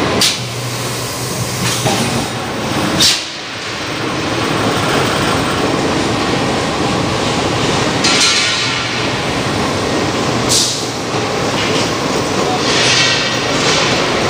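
Loud, steady clattering machinery din of a forging shop pressing hot steel plough-disc blanks. It is broken by three sharp metal bangs: one right at the start, one about three seconds in and one about ten seconds in.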